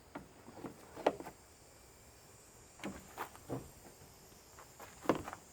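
Light clicks and knocks in three small groups: tools and the plastic cover of an electric lawn mower being worked loose during a teardown.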